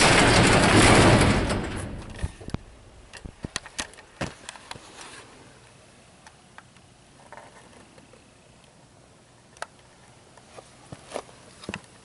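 Steel sectional garage door closing under its opener: a loud steady running noise that fades out about two seconds in as the door comes down. Scattered light clicks and taps follow.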